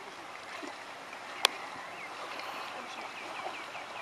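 Water splashing and sloshing as a hooked fish thrashes at the surface beside the boat, with one sharp click about a second and a half in.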